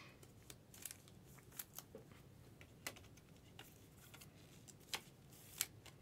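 Faint handling of trading cards and their packaging: scattered light clicks and rustles, with a few sharper ticks in the second half.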